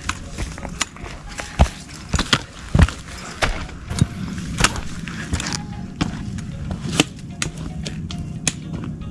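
Trekking-pole tips and boots striking a rocky trail in sharp, irregular clicks and taps, over background music.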